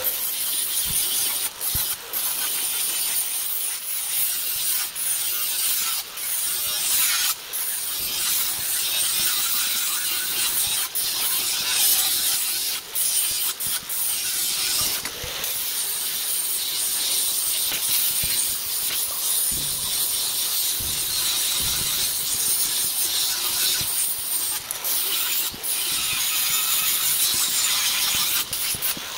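Angle grinder running against an A36 steel plate, grinding off the mill scale: a steady high whine over a harsh scraping hiss, with several brief dips as the disc lifts off the metal.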